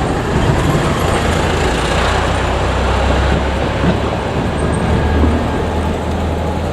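JR Kyushu 817-series electric train running by on the track, a steady rumble with a low hum underneath.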